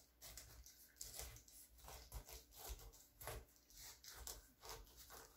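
Faint crunching and crackling of a chef's knife sawing down through a whole pineapple's tough rind and fibrous flesh, in short repeated strokes about two or three a second.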